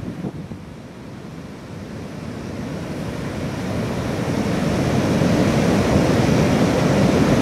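Ocean surf breaking over rocks and rushing up the beach as foaming whitewater, a steady rush of water that swells louder through the second half.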